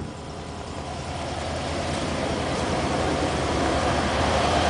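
Ford 351 Windsor V8 with a Holley four-barrel carburetor idling steadily, shortly after a cold start, growing gradually louder.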